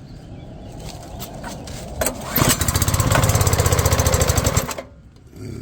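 Small gasoline engine of a pressure washer, pull-started cold on half choke: about two seconds in it catches and runs with a fast, even firing for about two seconds, then stops.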